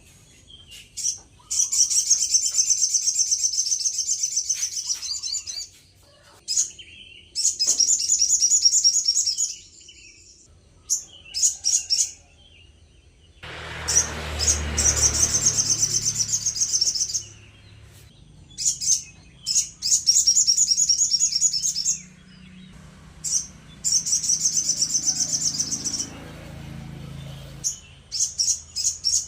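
A sogon bird in full song, giving loud, fast, high-pitched trilled phrases of two to four seconds each, repeated with short pauses between them. A brief low rushing noise comes in about 14 seconds in.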